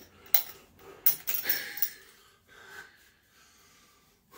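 A man breathing hard in a few heavy, gasping breaths, loudest in the first two seconds. He is out of breath from the strain of fastening a tight lifting belt.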